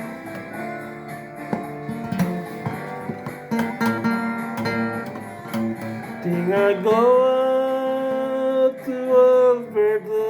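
Acoustic guitar strummed and picked in a folk-song intro. A sung melody line enters about six and a half seconds in, over the guitar.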